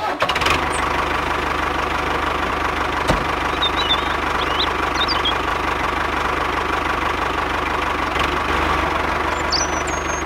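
Diesel tractor engine running steadily at a low idle, an even chugging with no change in speed.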